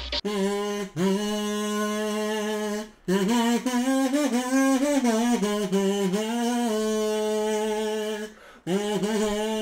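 A single kazoo buzzing the melody of an anime opening theme, in sustained phrases with short breaks about a second in, three seconds in and near the end.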